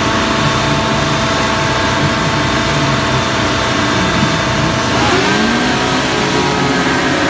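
Several racing hovercraft engines and ducted fans running steadily on the start line, then revving up with rising pitch about five seconds in as the race starts.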